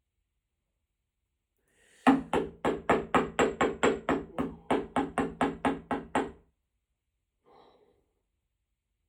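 Hand hammer striking silver stylus wire on a small metal anvil, forging the point: a quick, even run of about four blows a second for some four seconds, each blow ringing briefly.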